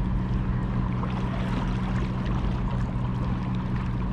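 A steady low motor hum runs throughout over water lapping against shore rocks, with a few faint clicks.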